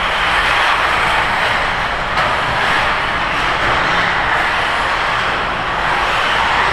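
A pack of 1/8-scale off-road RC buggies racing, their motors making a steady, dense buzz.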